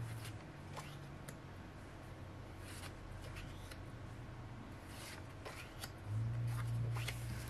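Thick paper postcards and packaging being handled, with light rustling and small taps and clicks. A low steady hum comes in about six seconds in.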